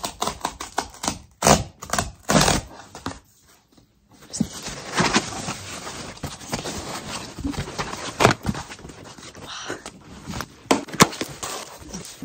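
Cardboard mailer box being torn open and handled by hand: a quick series of rips, crackles and taps from the card and tape, with a brief pause about three seconds in.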